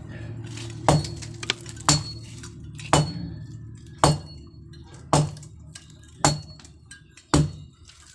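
Hammer blows striking metal, evenly paced at about one a second, each with a short metallic clink and ring, as in manual construction work.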